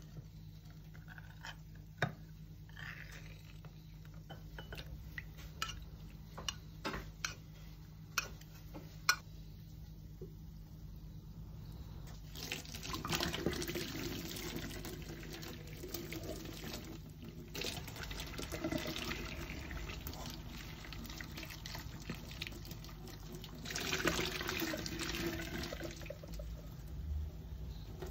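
A metal ring-pull can being opened by hand, heard as a few sharp clicks and knocks. About twelve seconds in, a kitchen tap starts running, its water pouring through a mesh sieve into a stainless steel sink, and it gets louder again near the end.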